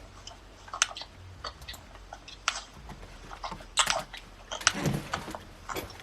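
Irregular clicks and taps on a computer keyboard and mouse, a few per second, with a fuller rustle about five seconds in.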